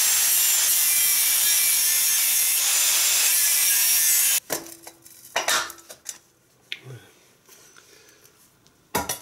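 Angle grinder with a cutting disc grinding through a Kawasaki ER-5's metal exhaust header pipe, a loud steady grinding that stops suddenly about four and a half seconds in. A few brief knocks follow.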